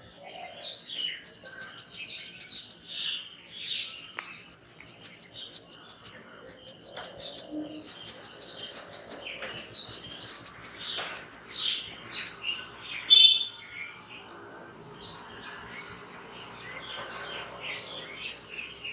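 Birds chirping over repeated rasping strokes of hands rubbing over skin and hair in a head and neck massage, with one sharper, louder call about two-thirds of the way through.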